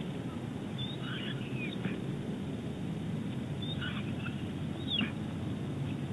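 A few short, high bird chirps in three brief clusters, about a second in, near four seconds and again at five seconds, the last a quick falling note, over a steady low rumble.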